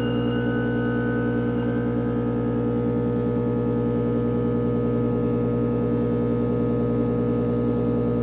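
Rancilio Silvia espresso machine's vibratory pump humming steadily while it pushes water through the coffee puck late in an espresso shot.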